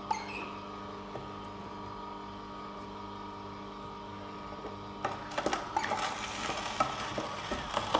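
Oscar DA1000 horizontal slow juicer's motor running empty with a steady hum. From about five seconds in, clicks and rattles from handling at the feed chute join it.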